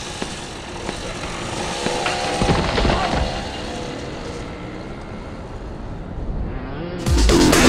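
Small single-cylinder minibike engines revving at a race start, rising in pitch around two to three seconds in. A sudden loud hit near the end.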